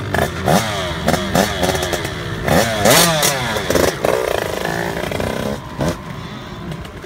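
Small youth motocross bike's engine revved in a string of quick blips, each a sharp rise and fall in pitch. It then settles to a steadier note as the bike pulls away near the end.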